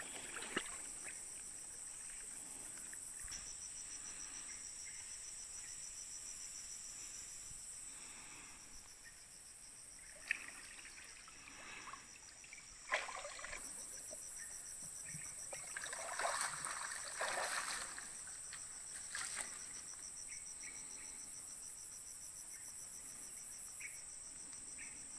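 Steady high-pitched chorus of insects with a fast pulsing trill. A few brief knocks and splashy noises in the middle.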